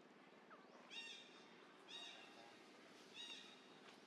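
An animal's short, high-pitched call, repeated three times about a second apart, each one arching up and down.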